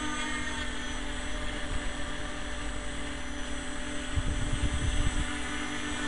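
RC tricopter's electric motors and propellers humming steadily in flight. Wind buffets the microphone in gusts, strongest about four to five seconds in.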